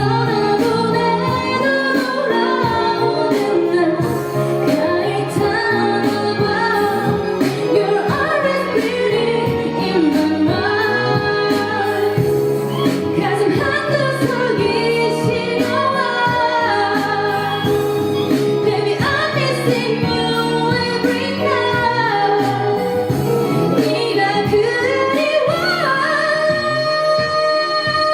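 A female singer sings a Korean pop ballad live over instrumental accompaniment, in a sustained, melodic vocal line.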